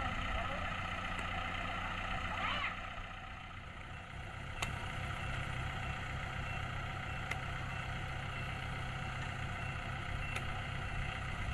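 Diesel engine of a farm machine running steadily, with three short sharp clicks a few seconds apart.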